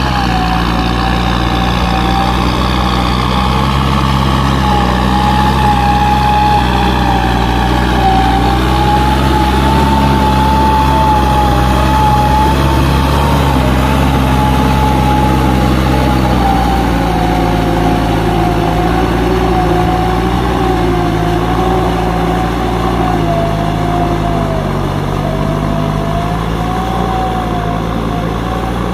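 Kubota M9540 tractor's four-cylinder diesel engine running steadily as it works, with a whine above it that wavers slightly in pitch.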